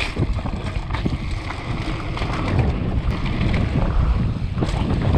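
Wind buffeting the microphone of a head-mounted camera while riding a downhill mountain bike fast over a gravel trail, with the tyres crunching on the gravel and the bike rattling in many quick clicks and knocks.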